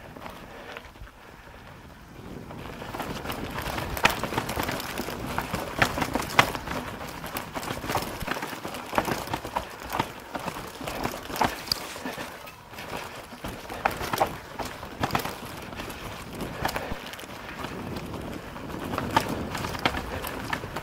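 Mountain bike riding down a rough trail: tyre noise with frequent irregular knocks and rattles from the bike over the bumps, quieter for the first couple of seconds and then louder.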